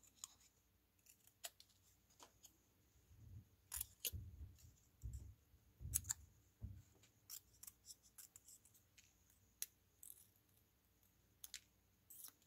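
Small craft scissors snipping around a small paper cut-out: faint, separate snips, coming thickest in the middle, with a few lighter clicks near the end.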